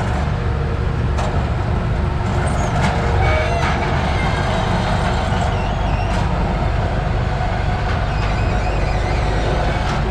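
Farm machinery engine running steadily under load, with a few sharp clanks and rattles of equipment spaced through it.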